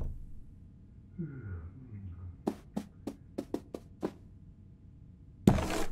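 Cartoon cat sound effects: a short low grumble falling in pitch, then a quick run of about seven light taps, then a loud thump near the end.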